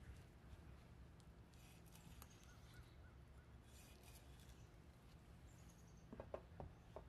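Quiet knife work: a chef's knife scoring the scaled skin of a whole snapper on a wooden cutting board, with a few faint scraping cuts, then a few light knocks near the end, over a low steady hum.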